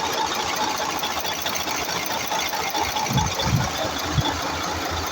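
Mercedes-Benz Actros V6 diesel truck engine running steadily at idle, with a dense, even mechanical clatter.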